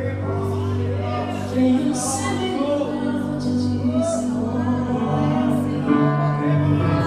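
Live gospel worship band playing: held keyboard chords over bass, with a singer's voice gliding through a melody above them. Two cymbal swells come through, about two and four seconds in.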